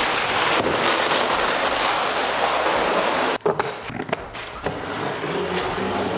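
Heavy cardboard shipping carton dragged across a concrete floor: a loud, continuous scrape that stops suddenly about three and a half seconds in. After that, quieter irregular handling noises from the box.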